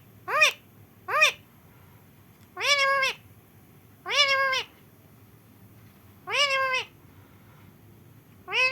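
Pet parrot giving a series of cat-like meow calls, each rising then falling in pitch: two short ones, then four longer ones spaced a second and a half to two seconds apart.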